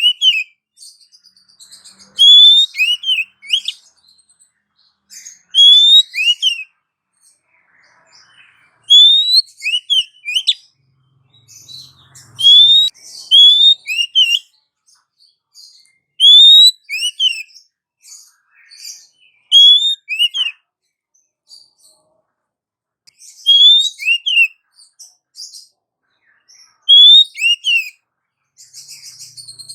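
Female Oriental magpie-robin calling. Each short phrase is a rising whistled note followed by two quick falling notes, repeated every three to four seconds, with thin scratchy chatter higher up between phrases.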